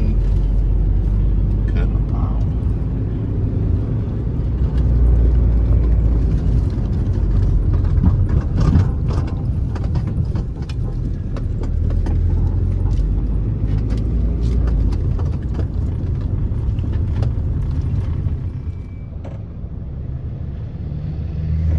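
Car driving, its engine and road noise heard from inside the cabin as a steady low rumble, with occasional clicks and knocks.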